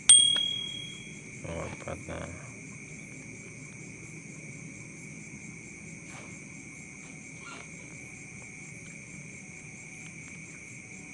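A bright chime rings right at the start and dies away over about a second: the sound effect of a subscribe-button animation. Behind it, insects chirr steadily at a high pitch, with a few faint soft knocks about two seconds in.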